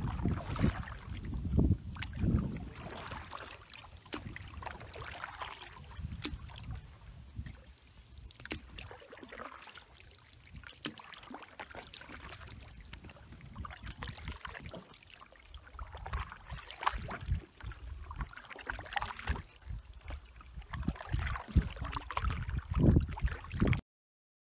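Tandem canoe paddling on a lake: paddle blades dipping and pulling through the water in an unhurried stroke rhythm, with splashes and water trickling off the blades. The sound cuts off suddenly near the end.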